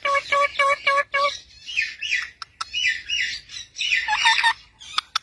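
A parrot vocalising: a quick run of about six short, identical pitched notes in the first second or so, then a jumble of higher chirps and squawks, some falling in pitch.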